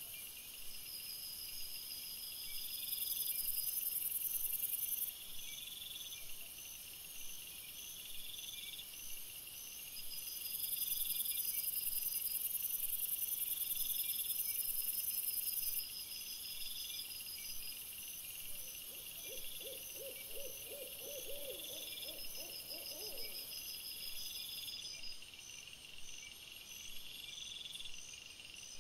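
Crickets chirping in steady, evenly repeated pulses over a continuous high hiss. Partway through, a brief run of about ten quick, lower-pitched pulses, like a hooting call, sounds for a few seconds.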